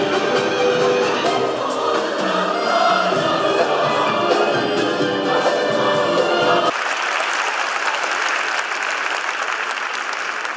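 Mixed choir of men and women singing, cut off abruptly about two-thirds of the way through by an audience applauding.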